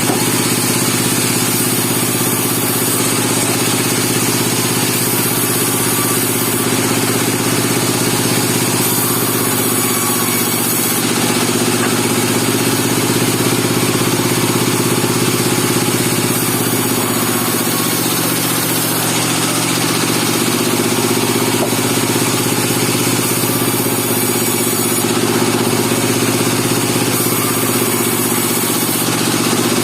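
Engine of a bandsaw sawmill running steadily at an even speed, with a slight slow rise and fall in pitch.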